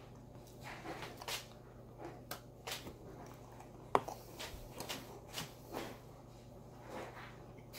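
Close-up eating sounds: irregular soft crunches and mouth noises as vanilla cookies and ice cream are chewed, with fingers picking at a plastic bowl and one sharp click about four seconds in. A low steady hum runs underneath.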